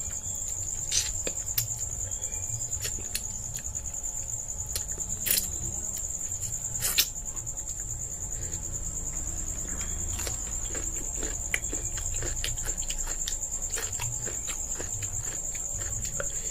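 Crickets chirring in one steady high trill, with close hand-eating sounds over it: fingers mixing rice on a plate and chewing, broken by short sharp clicks, the loudest about five and seven seconds in.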